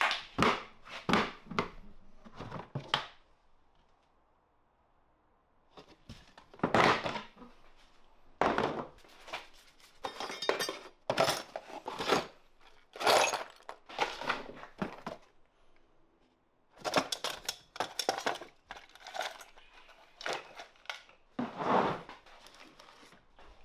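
Irregular short knocks and clinks of tools and metal parts being handled, with a pause of a couple of seconds a few seconds in and a shorter one past the middle.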